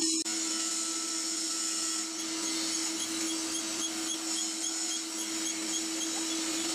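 Drill press running with a steady hum as its spindle turns a large twist drill bit. From about two seconds in, a faint light ticking repeats about three times a second.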